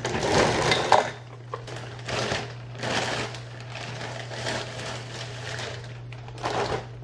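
Plastic packaging crinkling and rustling in about five separate bursts as a wig is handled and unpacked, over a steady low hum.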